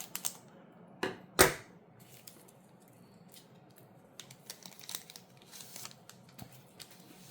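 A foil trading-card booster pack being torn open and the cards handled. There are sharp snaps about one and one and a half seconds in, then soft ticks and rustles of paper and card.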